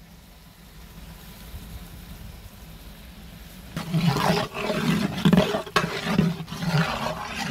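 A long metal spatula scraping and stirring a thick mix of onions and peppers in a large aluminium cooking pot, in loud, irregular strokes that begin about four seconds in, after a faint hiss.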